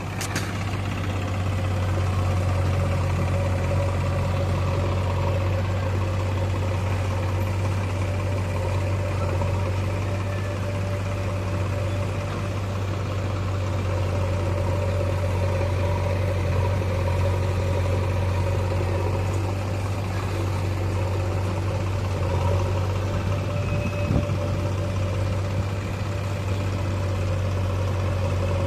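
Engine of a JCB 3DX backhoe loader running steadily at constant speed, an even low drone with no revving.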